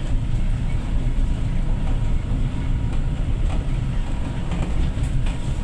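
Steady engine and road rumble of a moving vehicle, heard from on board.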